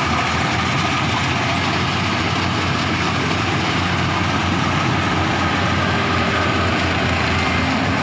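Yanmar YH850 rice combine harvester running at work close by: a steady, loud din from its diesel engine and its cutting and threshing machinery as it harvests standing rice.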